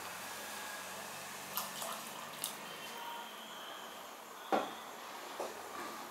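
Steady hiss from a gas burner heating an open aluminium pressure cooker of watery dal khichdi, with a few light clicks. About four and a half seconds in comes a sharp knock, a wooden spatula striking the pot as stirring begins.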